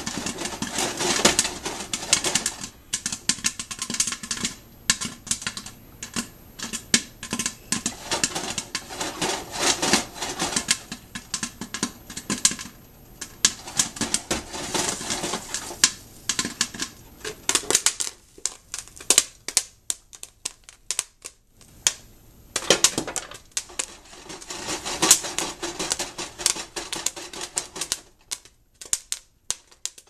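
Popcorn kernels popping in a covered metal pot on the stove: a rapid, dense crackle of pops. The pops thin out in the last couple of seconds, the sign that the batch is nearly done and ready to come off the heat.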